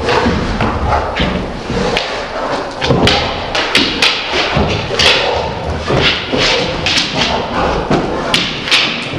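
Hungarian vizsla and a spotted pointer-type dog play-fighting: a busy run of thuds and knocks from paws and bodies hitting the rug and wooden floor, over scuffling, more frequent from about three seconds in.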